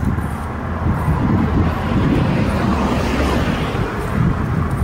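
Wind rumbling on the microphone of a moving bicycle, with a car passing close alongside: its tyre and road noise swells about halfway through and fades as it pulls ahead.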